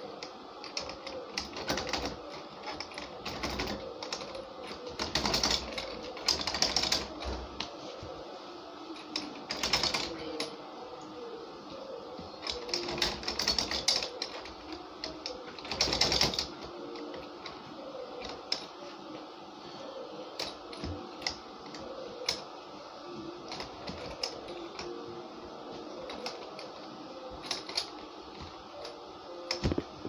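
Metal clicking and rattling of a broken door handle's latch mechanism as it is worked by hand with a small tool, in irregular bursts with several louder scraping rattles spread through.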